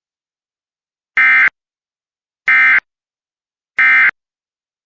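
Emergency Alert System end-of-message signal: three short bursts of SAME digital data, buzzing around 2 kHz and about a second and a half apart. They mark the end of the alert.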